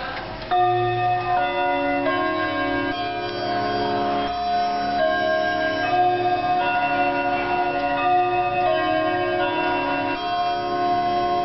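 Grandfather clock with a three-weight chiming movement playing a chime melody, a new struck note every half second to a second, each ringing on under the next. The chime is set off by turning the clock's hands.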